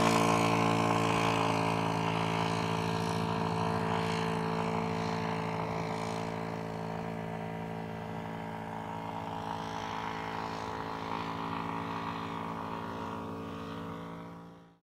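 Quarter-scale SE5a radio-controlled model biplane's engine and propeller running steadily in flight, slowly fading as the plane climbs away, then cut off abruptly near the end.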